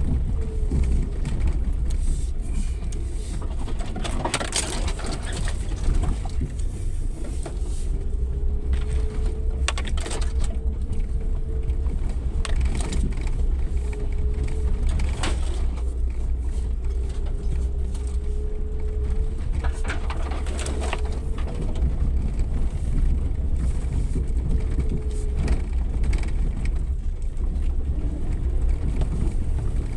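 Suzuki Jimny 4x4 driving off-road: a steady low engine and drivetrain rumble with a wavering whine that drifts up and down, and a few knocks spread through.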